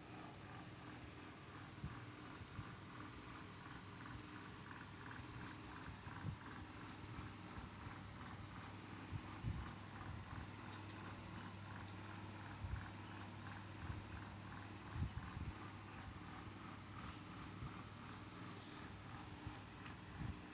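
A cricket chirping in a steady, fast-pulsing high trill that grows louder in the middle, with a few faint low knocks.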